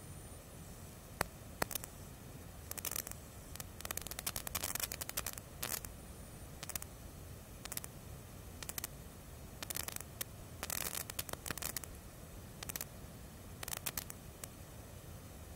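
Small scratchy clicks and rustles from handling while black lipstick is brushed onto the lips and a compact mirror is held close, coming in short irregular clusters over a faint steady hiss.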